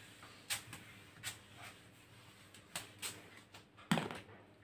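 Eraser wiping a whiteboard: a series of short, faint rubbing strokes, with a louder knock near the end.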